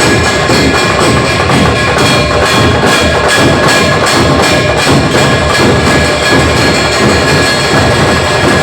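A tafa, a village percussion troupe, playing loud, dense, fast drumming, with a steady ringing tone held above the beat.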